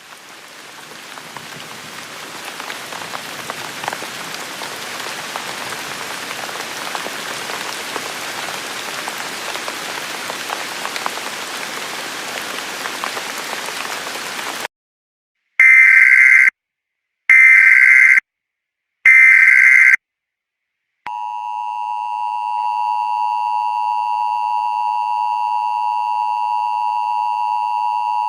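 Sound of rain rising in over the first few seconds and running for about fifteen seconds before cutting off. Then come three short bursts of Emergency Alert System header data, about a second apart. After them the EAS attention signal starts: a steady two-tone alert tone.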